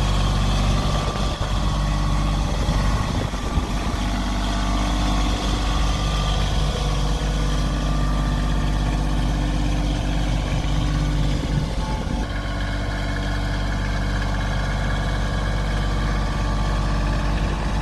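Bobcat CT2025 compact tractor engine running steadily at an even pitch as it moves a large round bale feeder.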